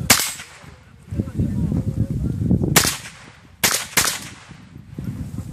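AR-style semi-automatic rifle firing four sharp shots: one right at the start, then after a pause of almost three seconds three more in quick succession, the last two about a third of a second apart.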